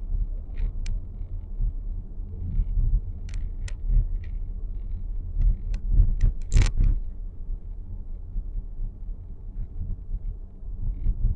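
Steady low rumble inside the cabin of a 2023 Nissan X-Trail e-POWER, with scattered sharp clicks and ticks from the dashboard, the loudest about six and a half seconds in. This is the abnormal dashboard noise the car is producing.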